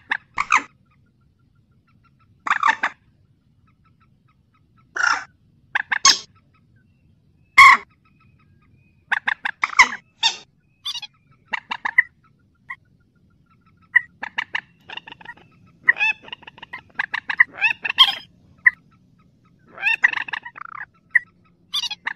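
Mandar sawah, a rail, calling in a lure recording: loud short harsh calls, spaced a second or two apart at first, then coming in quick runs from about nine seconds in.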